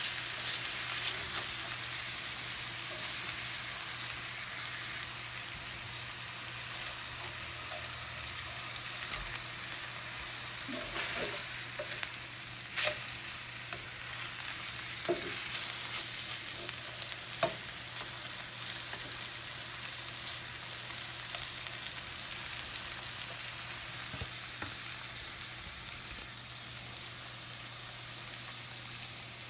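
Tilapia fillets sizzling steadily as they fry in butter in a skillet. Around the middle, a slotted spatula clicks and scrapes against the pan a few times.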